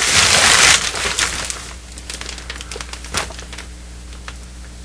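Plastic tarp crinkling and rustling as a hand presses and smooths it flat. It is loudest in the first second, then fainter rustles and a few light clicks follow.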